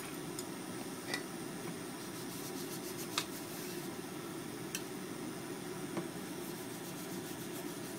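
Light clicks and taps of chopsticks and a greasing pad against a square metal tamagoyaki pan, five or so over a few seconds with the sharpest about three seconds in. Under them is a steady low rushing hum.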